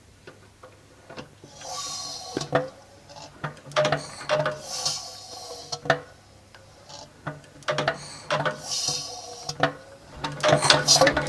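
A motor running with a steady low hum, irregular clicks and knocks, and noisy surges every few seconds. About ten seconds in it breaks into a dense, fast rattle.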